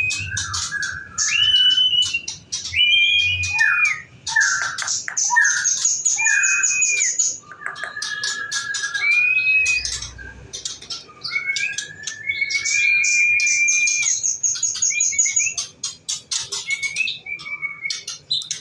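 White-rumped shama (murai batu) singing a long, varied song: clear whistled phrases that glide up and down, broken by rapid high chattering trills.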